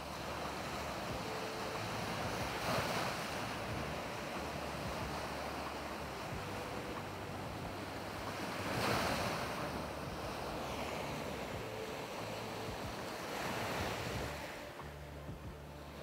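Sea waves breaking and washing up a dark sandy beach among rocks, a steady surf hiss that swells three times as waves come in, the loudest about halfway through.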